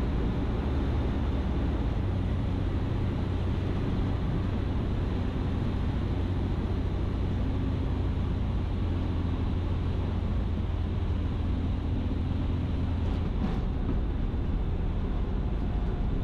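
Ikarus C42 light aircraft's engine and propeller running at low power, with wind rushing over the wing-mounted camera, as it lands and slows on the runway. The steady low drone eases about three quarters of the way through as the aircraft loses speed.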